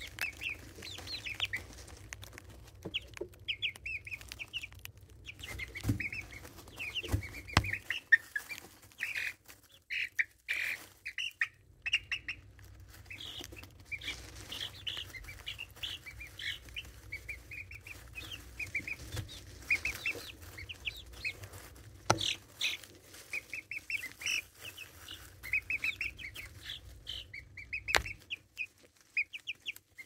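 A group of 4½-week-old chicks peeping and chirping in quick, short, high calls, with a few sharp taps.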